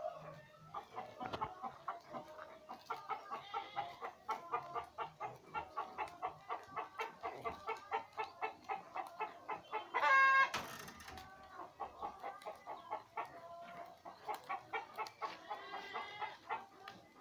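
Chickens clucking in a steady run of short calls, about three or four a second. About ten seconds in, one loud, drawn-out animal call rises over them for about a second.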